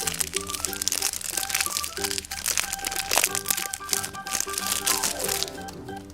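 Surprise-egg wrapper crinkling and crackling as it is torn and unwrapped by hand, over background music with keyboard notes. The crinkling stops about a second before the end.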